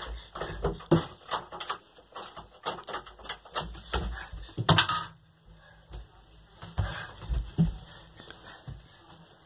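Rapid knocking and rattling at a wooden door, dense for the first five seconds with the loudest knocks about a second in and near five seconds, then a few scattered thumps.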